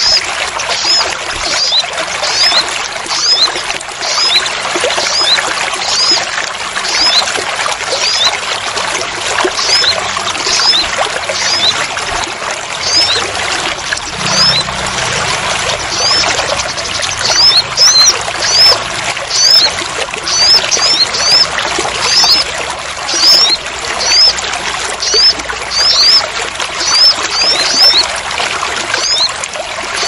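Steady heavy rain pouring and splashing, with a small bird giving short, high chirps over it again and again, often in quick pairs and more often in the second half.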